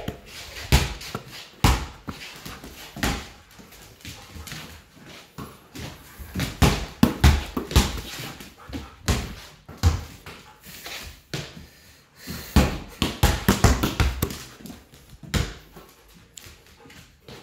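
Irregular thumps and knocks, some in quick clusters, in a small room.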